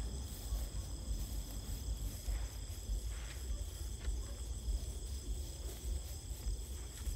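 Crickets chirring in a steady night chorus, several high tones sounding together, over a low rumble.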